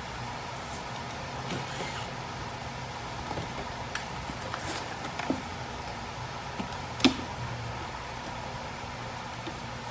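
Scattered clicks and knocks of plastic interior trim panels being pulled loose from under a Lexus IS300's dashboard, with one sharp knock about seven seconds in, over a steady low hum.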